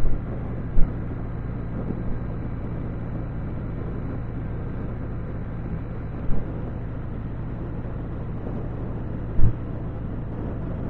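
Can-Am Spyder three-wheeler cruising at a steady speed, heard from the rider's seat: an even engine drone with road and wind noise, broken by four short, sharp thumps on the microphone.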